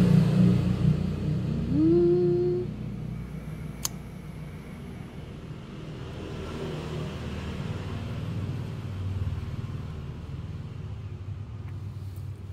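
Low engine rumble, loudest for the first couple of seconds, with a short rising tone about two seconds in, then fading to a faint low hum.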